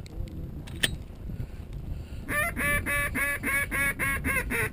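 A duck call blown in a rapid, loud string of quacks, about four a second, starting a little over two seconds in. A single sharp click comes about a second in.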